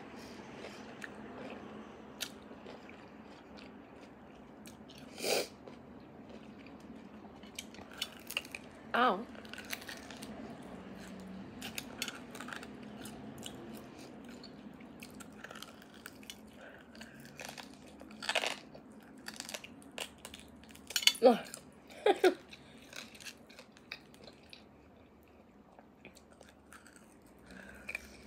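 Close-up mouth sounds of eating roasted beef bone marrow: chewing, with scattered sharp sucking and slurping noises as marrow is drawn out of the bone, the loudest a few late on.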